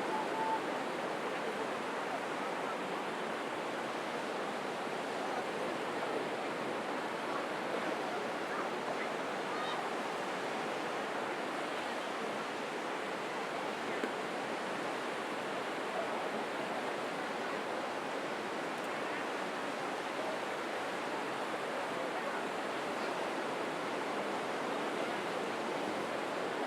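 Crowded public beach ambience: steady surf with the indistinct chatter of many people mixed in.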